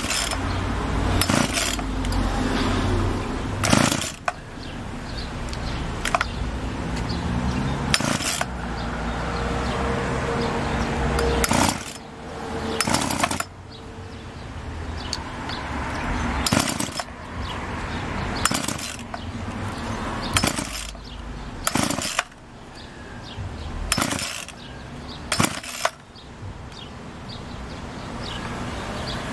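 Two-stroke 40cc Craftsman chainsaw being pull-started, its recoil starter cord yanked again and again, about a dozen sharp pulls a second or more apart. The engine turns over without staying running.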